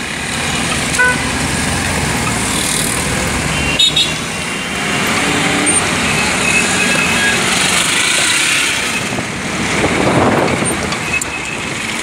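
Busy city street traffic: a steady wash of engine and tyre noise from cars and auto-rickshaws, with brief horn toots, the clearest about four seconds in. Near ten seconds a louder swell of noise passes.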